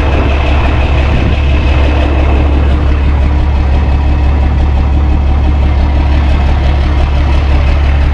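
Heavy tow truck's engine idling steadily, a loud, even low drone.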